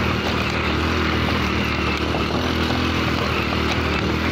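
Motorcycle engine running steadily while under way, heard from on the bike.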